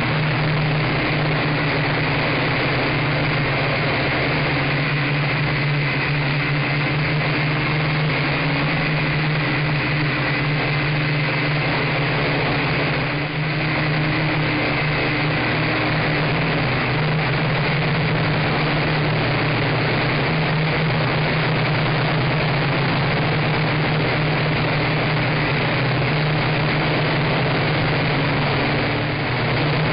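Nine Eagles MOLA M24 quadcopter's motors and propellers, heard up close through its onboard camera: a steady buzzing whine over a rush of propeller wash. The sound dips briefly twice, about halfway through and near the end.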